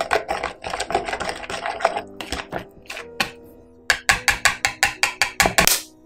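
Wire whisk beating flour and milk into a batter in a plastic bowl. The wires clatter rapidly against the bowl for about two seconds and then ease off. A fast run of loud whisk strokes, about five a second, comes near the end.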